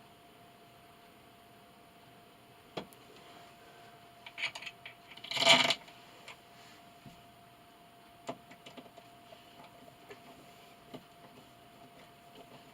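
Scattered clicks and knocks of hardware and tools being handled while a wall-mount bracket is fitted, with one louder half-second noisy burst about five and a half seconds in. A faint steady hum sits underneath.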